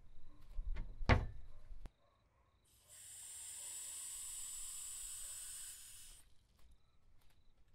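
Kitchen cabinet door knocking and clicking, with one sharp click about a second in. After a short silence comes a steady hiss lasting about three and a half seconds, starting and stopping abruptly.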